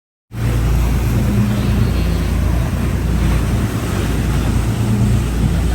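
Sportfishing boat's engine running steadily under way, a deep drone with water and wind noise over it. It cuts in abruptly about a third of a second in.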